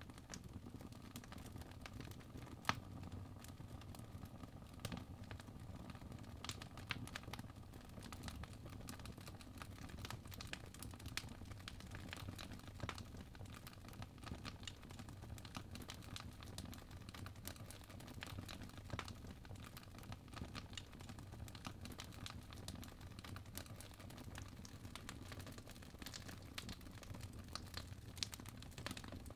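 Faint, irregular crackling and ticking over a low steady hum.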